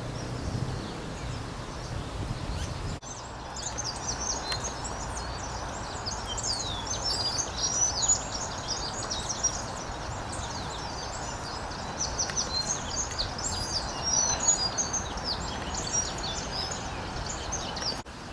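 Many small birds chirping, a dense run of short, high calls that starts abruptly about three seconds in, over steady background noise.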